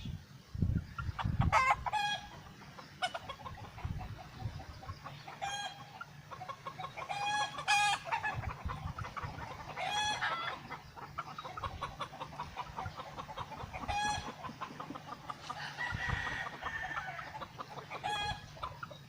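A bird calling over and over, short pitched notes every two to four seconds, with a few low thuds in the first two seconds.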